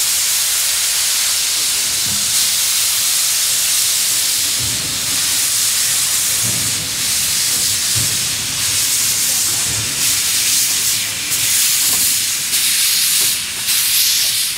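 Steam locomotive C56 160 venting steam in a loud, steady hiss that cuts off suddenly at the end.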